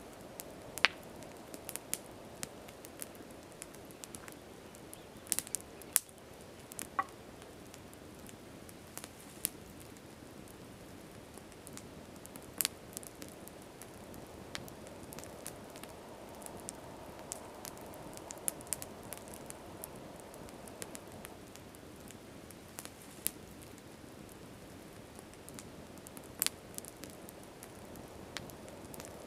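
Wood campfire crackling, with irregular sharp pops and snaps over a steady low hiss.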